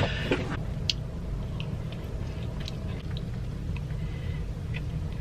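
A person chewing food close to the microphone, with scattered small wet smacks and clicks of the mouth, over a steady low hum.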